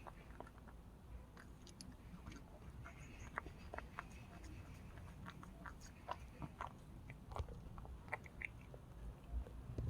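Cat chewing dry kibble: faint, irregular crisp crunches.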